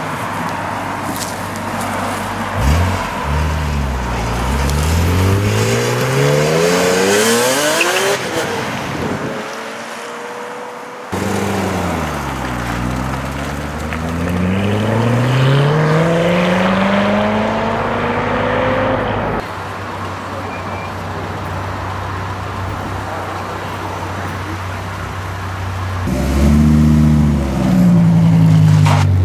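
Sports cars accelerating hard away one after another. First a BMW E46 M3's straight-six climbing steadily in pitch for several seconds; then a C7 Corvette Stingray's V8 dipping and then climbing in another long pull; near the end a Dodge Viper GTS's V10 revving loudly.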